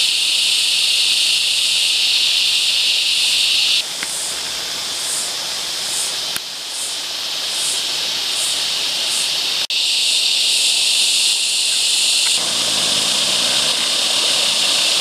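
A steady, high-pitched insect chorus with a fainter pulsing call above it, over water trickling down a small rock cascade. The chorus cuts out abruptly a few times and then returns.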